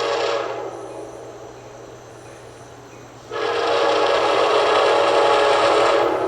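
Nathan K5LA five-chime locomotive air horn sounding a chord of several tones. One blast cuts off shortly after the start and dies away, then a second long blast starts suddenly about three seconds in and holds for about three seconds, over a faint steady low hum.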